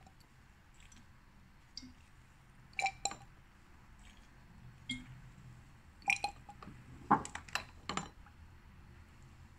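Glass test tube clinking against a metal test-tube rack: a few sharp clinks about three seconds in, then a cluster of louder clinks and knocks in the second half as the tube is handled and lifted out.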